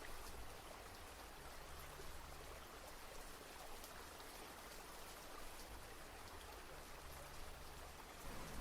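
Gentle, steady rain, faint and even throughout.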